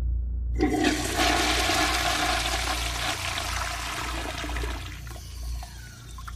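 Toilet flushing: a rush of water starts about half a second in, stays strong for about four seconds, then drains away more quietly. A steady low rumble runs underneath.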